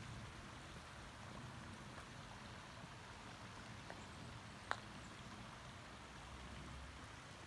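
Faint, steady running of a shallow river over stones, with one sharp click a little past halfway.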